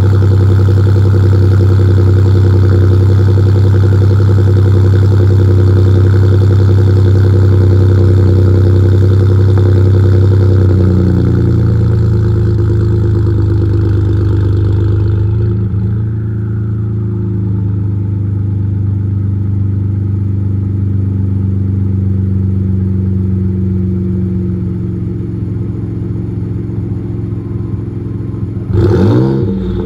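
2018 Ford F-150's 2.7L EcoBoost twin-turbo V6 idling after a cold start through a Roush single exhaust with catted downpipes, running loud and steady. The idle steps down to a lower speed about eleven seconds in and again about fifteen seconds in, and a quick rev begins right at the end.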